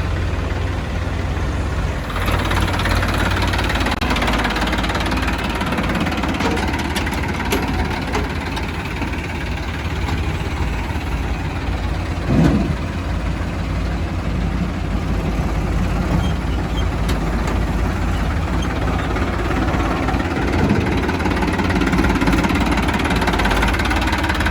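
Diesel engine of heavy machinery running steadily, growing a little louder about two seconds in, with a brief louder note about halfway through.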